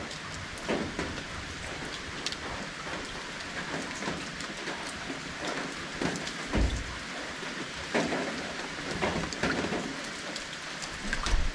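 Rain falling steadily, with louder single drops striking close by every second or two.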